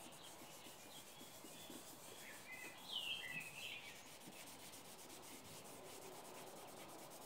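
Faint rubbing of a cloth rag over a painted MDF panel, wiping back wet metallic paint. About three seconds in comes a brief high chirping sound.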